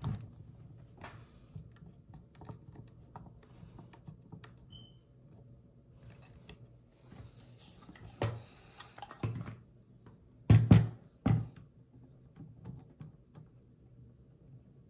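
Small metallic clicks and taps of a red dot sight being fitted and screwed down onto an AK pistol's quad rail, with a short rustle and then a few louder knocks about two-thirds of the way through, over a low steady hum.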